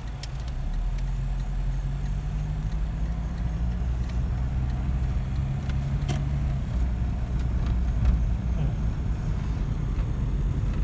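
Car driving: steady low engine and road hum that grows slightly louder about a second in.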